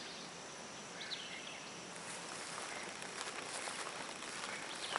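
Quiet outdoor ambience in a pine and palmetto forest: a faint steady hiss with a few faint high chirps about a second in and scattered faint ticks.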